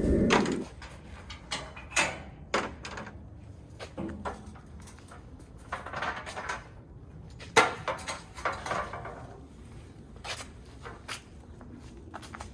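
Aluminum UTV deck ramps and their clips being handled: irregular metal knocks and clanks with short scrapes, a sharper clank about two seconds in and another past the middle.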